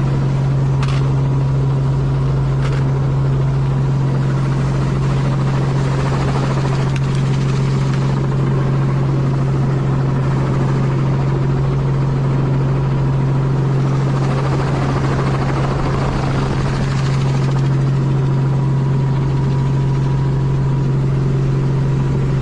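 Light helicopter in flight, heard from inside the cabin: the rotor and engine run with a steady low hum over a constant rushing drone.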